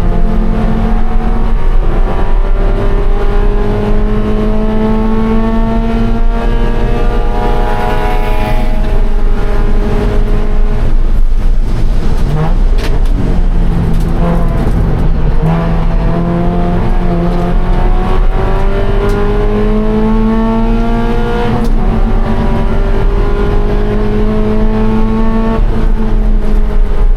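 Scion FR-S's 2.0-litre flat-four engine at full throttle on track, climbing in pitch several times and dropping sharply at each upshift, with a rougher stretch off the throttle about halfway through.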